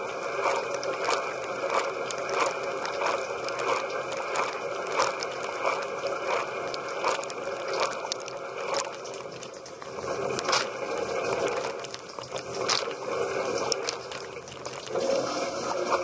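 Dishwasher wash cycle heard from inside the tub: water jets spraying and splashing against the racks and tub walls, with a regular pulse about twice a second.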